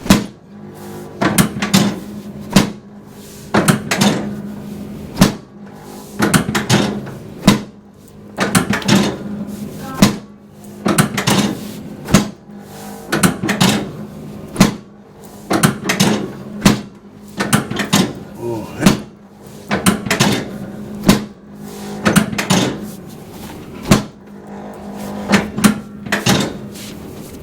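Chiropractic drop table sections dropping under thoracic drop adjustments: a long series of sharp clunks, very roughly one a second, over a steady low hum.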